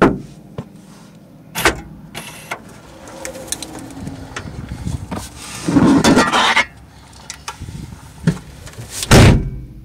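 Car trunk being opened and handled: a sharp knock as the lid opens, a few bumps, then a loud scraping rustle around the middle as a long-handled tool is dragged out of the trunk. A loud thump comes near the end.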